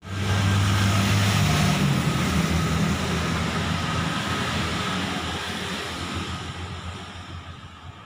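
A motor vehicle's engine passing close by, loud at first, then fading away over several seconds.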